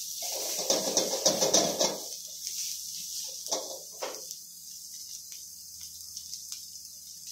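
Stir-fry of noodles, chicken and vegetables sizzling in a wok, with a spatula scraping and tossing the food against the pan for the first two seconds and briefly twice more about three and a half and four seconds in. After that only the steady sizzle and a few small ticks remain.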